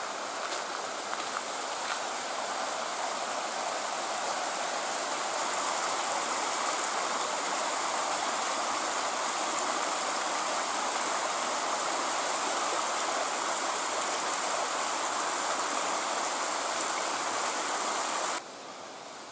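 Small mountain stream rushing: a steady, even rush of water that grows louder over the first few seconds, holds, and cuts off abruptly near the end.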